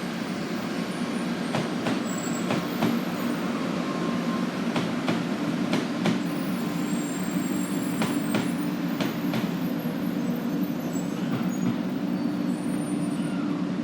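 500 Series Shinkansen train pulling into a station platform. It runs with a steady rumble and irregular sharp clicks from the wheels on the track, with short high squeals in the second half.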